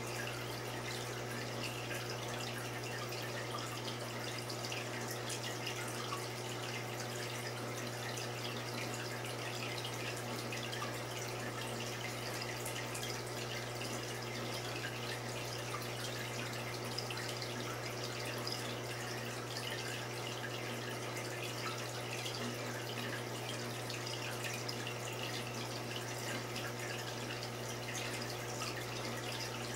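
Aquarium water trickling and bubbling steadily, with many small drip-like crackles over a steady low hum.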